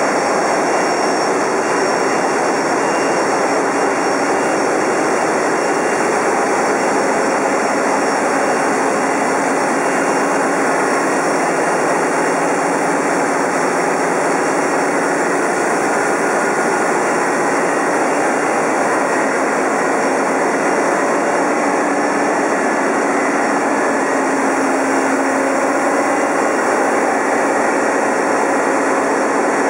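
Loud, steady din of large marine diesel engines running in a ship's engine room.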